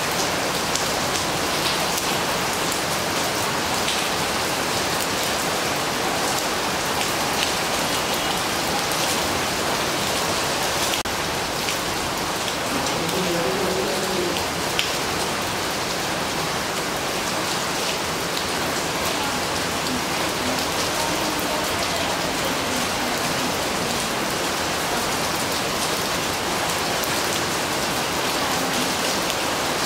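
Steady rain falling on the glossy leaves of a flowering shrub: an even hiss with single drops striking the leaves close by.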